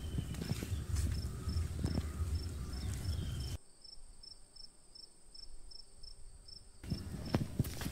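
Insect chirping in an even rhythm: short high chirps, just under two a second, over a low rumble that cuts out about halfway. Near the end come footfalls on dirt.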